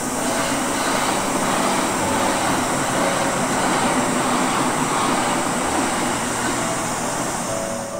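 A train passing out of sight on the Chuo Main Line: a steady rumble that swells toward the middle, with a steady high hiss above it and soft piano background music underneath.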